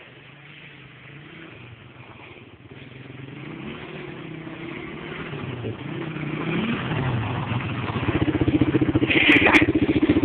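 Quad ATV engine approaching, growing steadily louder, its pitch rising and falling as the throttle is worked, until it runs close by with a loud, rapidly pulsing exhaust note. Two sharp clicks come near the end.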